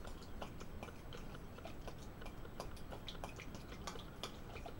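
Metal spoon stirring a canned corn-and-vegetable mix in a glass bowl: soft wet squelching with light, irregular clicks of the spoon against the glass, several a second.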